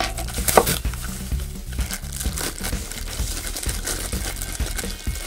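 Bubble wrap and plastic packaging crinkling and rustling as they are handled and pulled apart, loudest about half a second in, with background music underneath.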